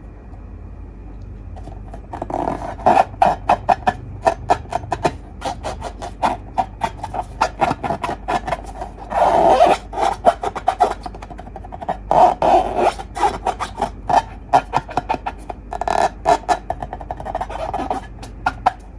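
Slime being squished and mixed, a quick run of sticky clicks and squelches that grows louder every few seconds.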